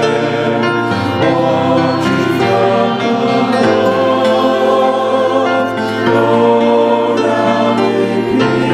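Choral music: a choir singing in sustained harmony, the chords changing every second or so.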